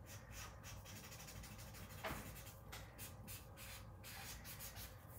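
A felt-tip marker stroking back and forth on paper while colouring in: faint, repeated scratchy strokes, with a light knock about two seconds in.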